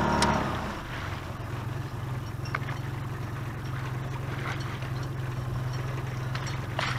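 A small boat's motor running with a steady low hum; a higher whine from it fades away in the first half-second. A couple of faint knocks are heard.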